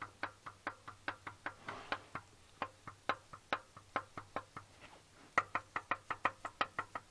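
Kia Sportage 3 petrol engine knocking: sharp, regular knocks about four a second, with a louder run of knocks about five and a half seconds in. The cylinder walls of this engine show scoring, and the dealer called the noise normal.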